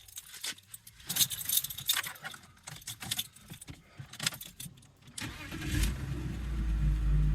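Keys jangling and clicking, then about five seconds in the BMW E46's engine is cranked briefly and starts, settling into a steady idle.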